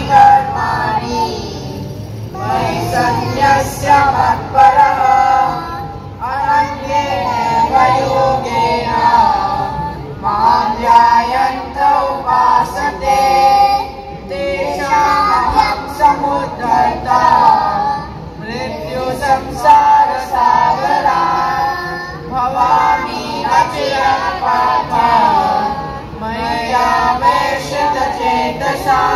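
A group of children singing a song in phrases with musical accompaniment, amplified through outdoor loudspeakers.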